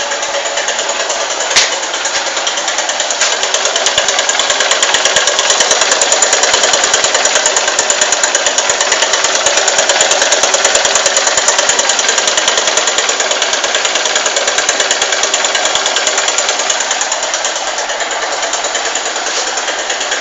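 Honda Titan 150 single-cylinder motorcycle engine running with a rapid, even tec-tec ticking, the strange noise the owner cannot explain. There is one sharp click a little over a second in, and the engine gets louder about three seconds in.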